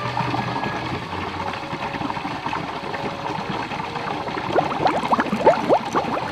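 Water sound effect: bubbling, gurgling water. In the last two seconds come a quick flurry of short rising plinks of bubbles and drops.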